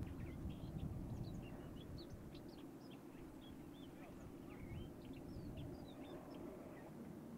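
Many short, high bird chirps and squeaks scattered over a low, steady rumble of boat engines, the rumble easing off during the first couple of seconds.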